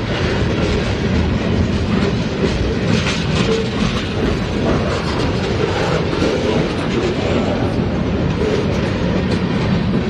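Norfolk Southern mixed freight train's boxcars and centerbeam lumber flatcars rolling past at speed over a road crossing: a steady, loud rumble with a clatter of steel wheels on the rails.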